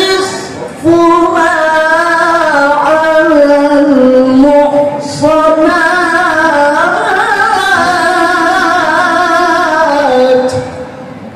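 A man's voice reciting the Qur'an in melodic tilawah style through a microphone and PA, drawing out long held notes that turn slowly up and down in pitch. There are two short breaks, about a second in and about five seconds in, and the voice stops near the end.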